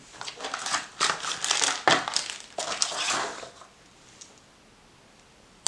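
Rustling and crinkling handling noise in a string of quick strokes lasting about three and a half seconds, then quiet.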